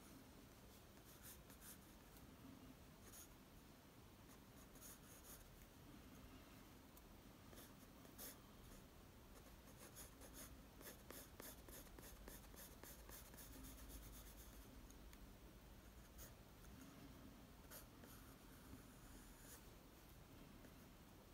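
Faint scratching of a graphite pencil sketching on paper: short strokes, scattered at first, then a quick run of rapid strokes about halfway through.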